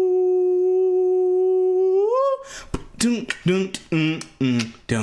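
A person hums one long steady note that slides upward about two seconds in. Then they sing short rhythmic syllables about twice a second, mixed with sharp clicks, as if vocalising a half-remembered song.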